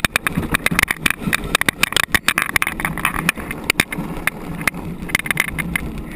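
Wheeled gravity luge cart rolling fast down a paved track: a continuous rumble of the wheels on the surface, thick with irregular rattles and sharp clicks and knocks.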